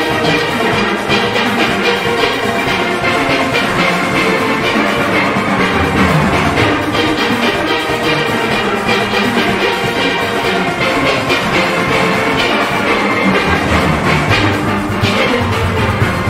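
Steel orchestra playing: many steelpans sounding together over drums and percussion, in a dense, steady stream of struck notes.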